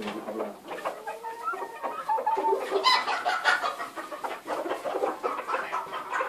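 A flock of chickens clucking and calling over one another, with a louder run of calls about three seconds in.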